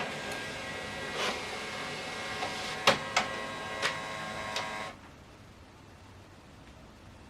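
HP OfficeJet Pro 9120e automatic document feeder and scanner mechanism running a two-sided scan: a steady motor whine with several clicks and clunks as the pages feed through. It stops suddenly about five seconds in.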